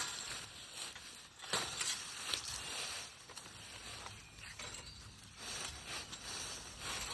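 Rustling and crunching in dry brush and leaves, in irregular bursts.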